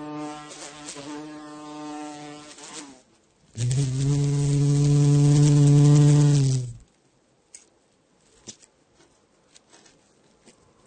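Flying insect buzzing in wing-beat flight: a pitched hum that wavers and fades over the first three seconds. After a short gap it returns louder and steady for about three seconds, then stops abruptly. Only a few faint ticks follow.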